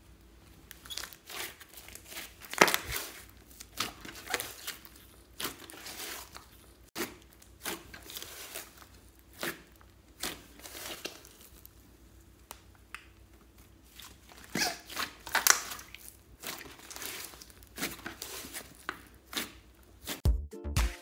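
Hands kneading and pressing a large mass of thick, sticky slime: irregular crackling and popping as the slime stretches, folds and pulls apart under the fingers.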